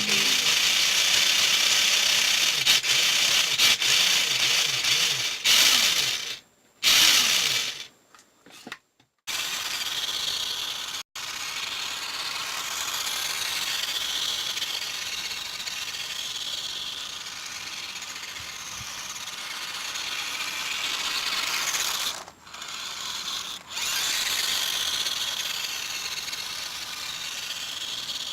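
Small electric motor and plastic gearbox of a 1984 Nikko Big Homer 1:18-scale RC buggy whining as it drives, rising and falling with the throttle. The sound cuts out abruptly a few times, about six to eleven seconds in and briefly again past twenty seconds.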